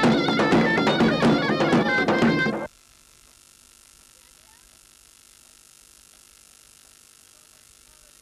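Loud traditional folk dance music with a drum beating under a reedy wind instrument, cutting off abruptly a little under three seconds in. A faint steady hum remains after it stops.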